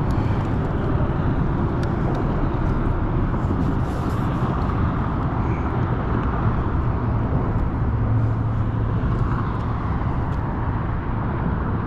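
Steady rumble of road traffic, with a low hum swelling briefly about eight seconds in, as of a vehicle passing.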